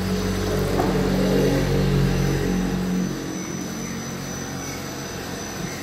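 Wire extrusion line machinery running: a steady electric-motor hum with a low drone, which drops away about three seconds in.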